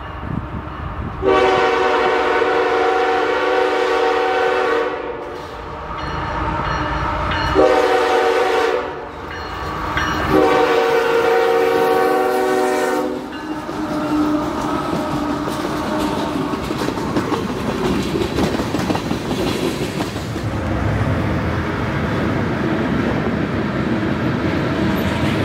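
Diesel freight locomotive's multi-note air horn sounding three blasts, long, short, long, as the train approaches, then the steady rumble and clickety-clack of tank cars rolling past.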